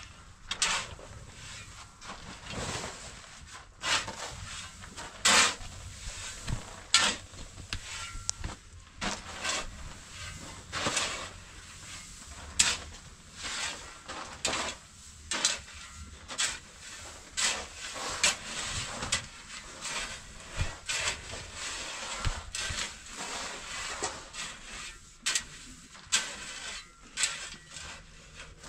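Irregular knocks and clatter of wood being struck and handled, one or two a second, with some rubbing and scraping between the knocks.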